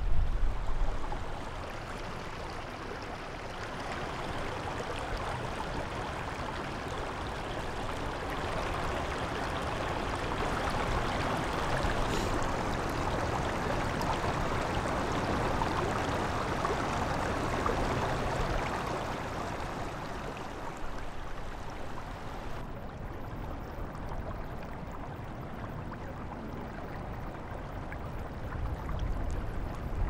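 Shallow, partly frozen creek running over rocks and ice: a steady, even rush of water, recorded close with a shotgun microphone. The sound turns a little duller about two-thirds of the way through.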